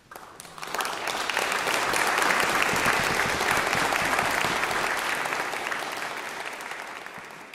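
Concert audience applauding: the clapping breaks out suddenly as the music ends, swells within about two seconds, then slowly dies away.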